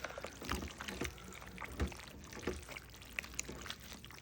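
A spoon stirring saucy tortellini in a crock pot: soft, wet squelching with a few light knocks of the spoon against the crock.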